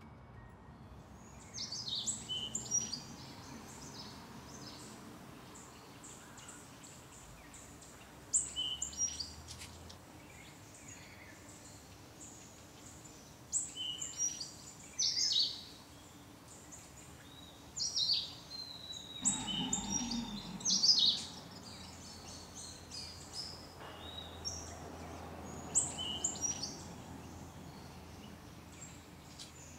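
Small songbirds chirping and singing in short, intermittent bouts of high notes and trills, over a faint steady background hum.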